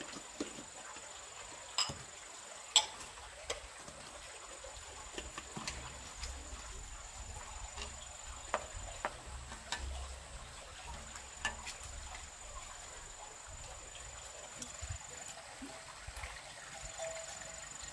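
A steady high-pitched insect drone that breaks off and resumes a few times, with scattered light clicks and knocks; two louder knocks come about two and three seconds in.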